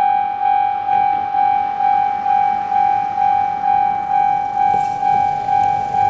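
Japanese level crossing warning bell, electronic, ringing its repeated 'kan-kan' at an even pace of about two strokes a second: the crossing is closed for an approaching train.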